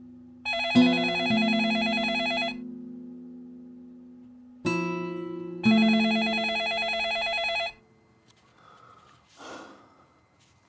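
A desk telephone ringing twice, each trilling ring about two seconds long with a pause of about three seconds between them, over soft background music with sustained low notes. The ringing stops after the second ring.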